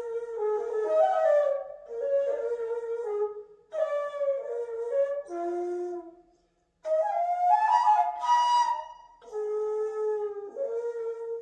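Daegeum, the Korean transverse bamboo flute, playing a slow, breathy melody in phrases separated by short pauses, with its loudest, brightest phrase about eight seconds in.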